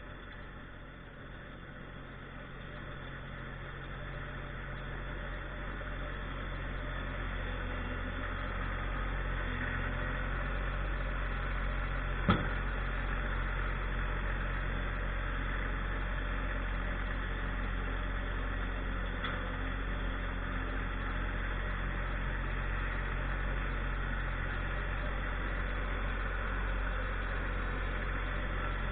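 Tractor engine running steadily, growing louder over the first several seconds, with one sharp knock about twelve seconds in.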